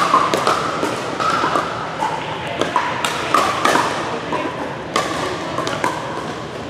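Pickleball paddles hitting the hard plastic ball, many sharp pocks at irregular intervals from this rally and neighbouring courts, several with a short ringing tone, in a large gymnasium.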